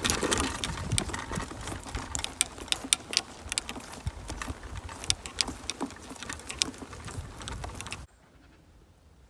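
Handling noise from a handheld phone being carried across a golf course: many irregular sharp clicks and knocks over low wind rumble on the microphone. It cuts off abruptly about eight seconds in, leaving only a faint background.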